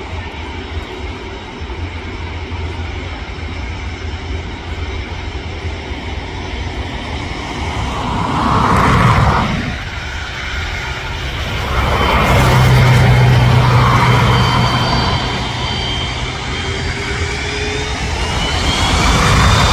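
Jet airliner engines running, a steady low rumble with a thin high turbine whine. The sound swells about eight seconds in, again from about twelve seconds, and once more near the end, where the whine glides in pitch.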